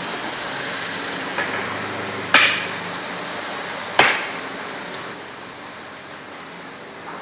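Two sharp clacks of makruk pieces being set down on the board, about a second and a half apart, each ringing briefly, over a steady hiss.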